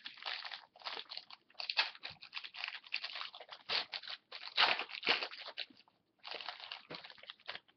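Foil wrapper of a 2011-12 Certified hockey card pack being torn open and crumpled by hand: a run of crackling, crinkling rustles, loudest about two-thirds through, with a short pause near the end.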